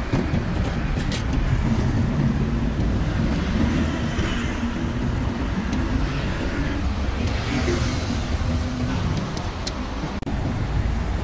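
Street traffic: a steady rumble of motor vehicle engines running and passing, with a few faint clicks.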